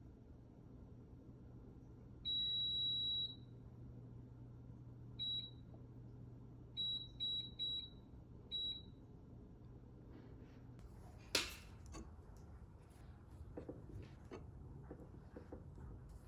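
Kitchen appliance's electronic beeps, one long beep followed by a few short ones in a quick pattern, over a steady low hum. The hum stops with a sharp click about eleven seconds in, followed by light handling noises.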